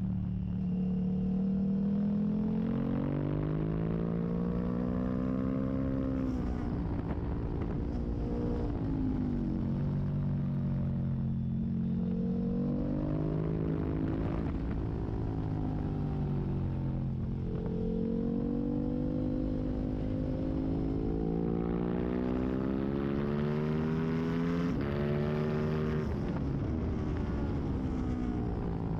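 Racing motorcycle engine at speed heard from on board, its pitch climbing as it accelerates and falling sharply again and again through gear changes and braking, over steady wind rush.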